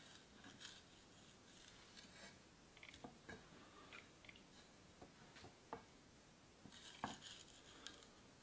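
Near silence with faint, scattered small clicks and taps as a blade slits open the backs of peeled shrimp.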